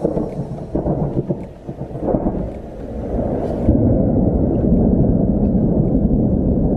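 Thunder from a close lightning strike: a low rumble that swells sharply louder a little under four seconds in and then carries on loud and steady.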